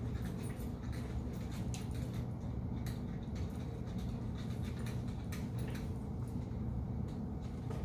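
Scattered light clicks and scratches from handling a battery-operated wall clock while its battery is changed, over a steady low hum.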